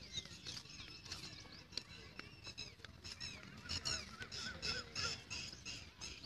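Birds calling: many short, high, repeated calls, coming thick and fast in the second half.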